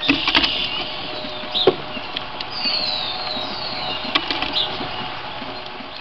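Small songbirds chirping in short, high, downward-gliding notes, with a few sharp clicks and knocks of birds on the wooden feeder tray, over a steady hiss and faint hum.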